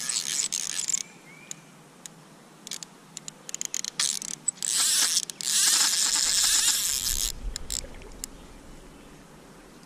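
Fly line and fly reel being worked while a hooked trout is played: hissing, rasping runs of line with scattered clicks between them, loudest in the first second and again from about four to seven seconds in.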